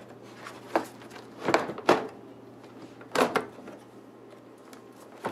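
A few separate plastic clicks and knocks as a replacement dishwasher handle and latch assembly is handled and set against the door's edge, the last about three seconds in.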